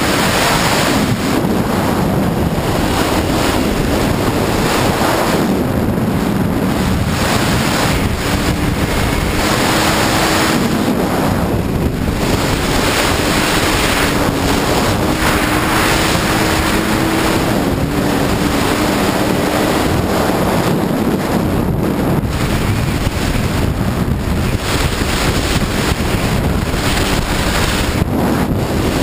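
Sea-Doo personal watercraft running at speed on open water: wind buffeting the microphone and hissing jet spray, with the engine's steady note faintly underneath.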